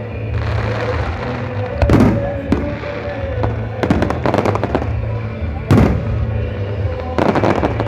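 Fireworks going off: a string of sharp bangs, strongest about two seconds in and again near six seconds, with quick rapid-fire cracks around four seconds and near the end, over background music.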